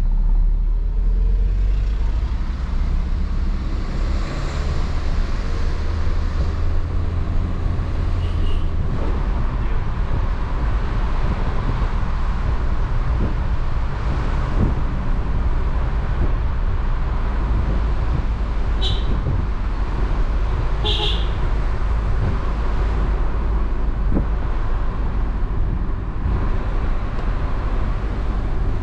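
Car driving along a road: a steady low engine and tyre rumble, with two short high squeaks about two-thirds of the way through.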